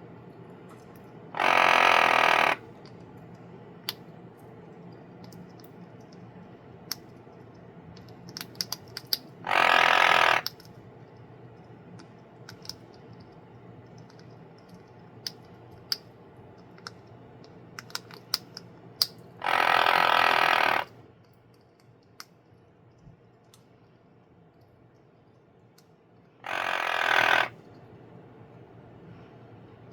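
Eclectus parrot imitating snoring: four raspy, hiss-like snores of about a second each, several seconds apart, with small scattered clicks in between.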